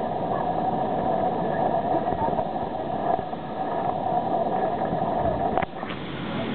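Steady mechanical hum and rush of a large hall's ventilation, with faint voices under it. A sharp click comes about five and a half seconds in, after which it is a little quieter.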